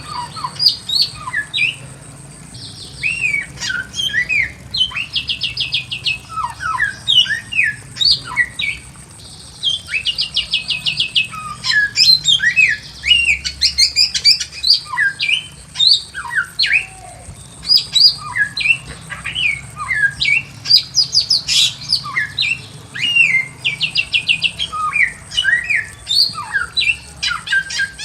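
Bare-throated whistler (samyong) singing a loud, varied song of sliding whistles mixed with fast runs of rapidly repeated notes, phrase after phrase with only short gaps.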